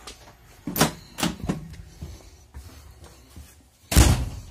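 A few knocks and bumps inside a passenger railway carriage, then a door slamming shut heavily about four seconds in.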